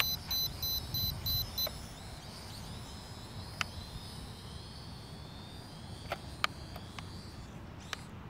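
Rapid electronic beeping, about three beeps a second, for the first second and a half. Then the faint high whine of a small camera drone's motors, slowly falling in pitch, with a few sharp clicks over a low wind-like rumble.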